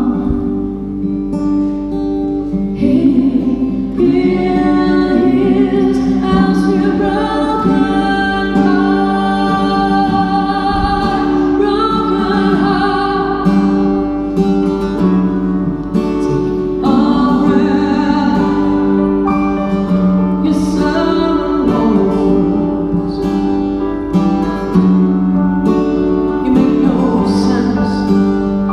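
Live band music: a female lead vocal singing a slow ballad over acoustic guitar and other instruments.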